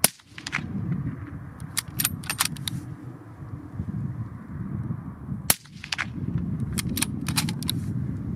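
Two suppressed shots from a .308 Win Tikka T3X bolt-action rifle fitted with an ASE Utra Radien suppressor, one right at the start and one about five and a half seconds later. A quick series of sharp metallic clicks follows each shot a couple of seconds after: the bolt being worked to chamber the next round.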